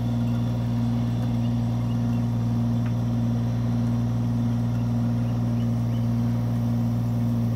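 Kubota mini excavator's diesel engine running at a steady pitch, powering the hydraulic drive head that screws a steel screw pile into the ground.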